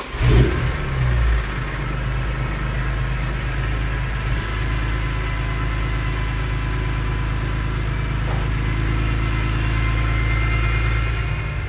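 BMW E46 M3's S54 3.2-litre inline-six, breathing through a freshly fitted Karbonius CSL carbon airbox intake, running just after start-up. It revs up briefly in the first second or so, then settles into a steady idle.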